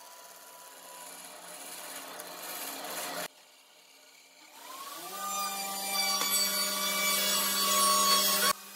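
Bandsaw running and cutting through a thick wooden block along a curve. About halfway through, a whine rises in pitch and then holds steady, growing louder.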